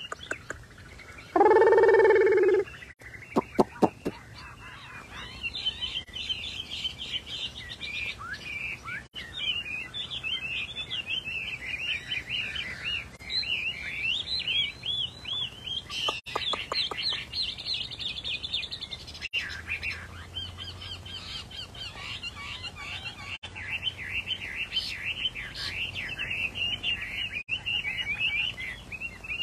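Chinese hwamei singing: a long, continuous run of quick, varied whistled phrases, high-pitched and rapidly sliding up and down. About two seconds in, a loud steady pitched tone lasts about a second, followed by a few sharp clicks, before the song takes over.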